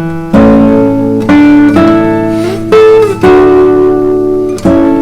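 Music: a plucked string instrument strumming chords, about six strums, each left to ring out, with a couple of sliding notes in the middle.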